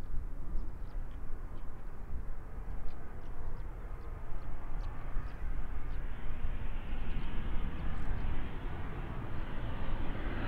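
SEPECAT Jaguar jet's twin Adour turbofans on approach with gear down, a steady rumbling jet noise that grows louder and brighter in the second half as the aircraft closes in.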